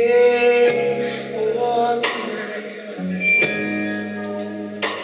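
Live blues band playing a slow blues song: a woman singing over held bass and keyboard-like chords, with drum cymbal crashes about every second and a half.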